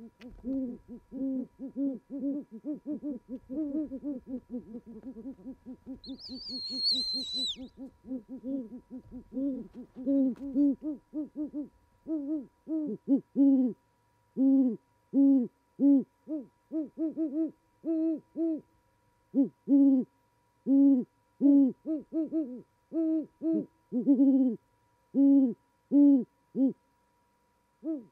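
A pair of great horned owls hooting to each other in a duet, with deep hoots overlapping rapidly at first, then coming in spaced groups. A brief high-pitched squeal comes about six seconds in.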